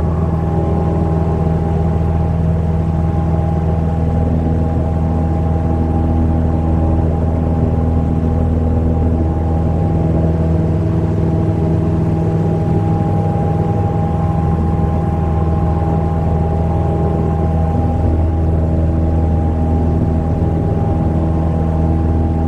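Cessna 172M's Lycoming O-320 four-cylinder engine and two-blade McCauley propeller running steadily in flight: a loud, even drone that holds one pitch with no change in power.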